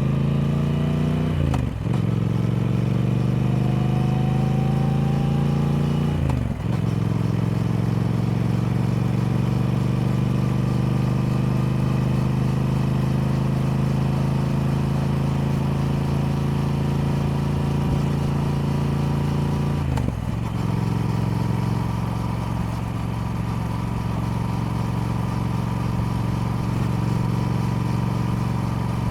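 Triumph Speed Twin's parallel-twin engine pulling under acceleration: it rises in pitch, then shifts up briefly about a second and a half in and again around six seconds. It then climbs slowly through a long steady pull, and after one more brief break around twenty seconds it settles into a steady cruise.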